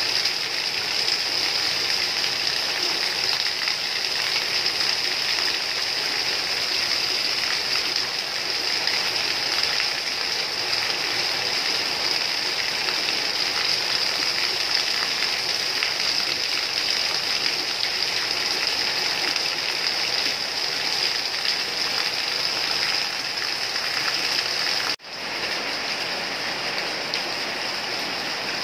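Steady heavy rain, an even hiss of falling water. About 25 seconds in it cuts out for an instant and resumes slightly quieter.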